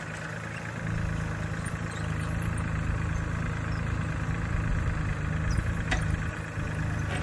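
An engine running steadily with a low, even hum that grows louder about a second in.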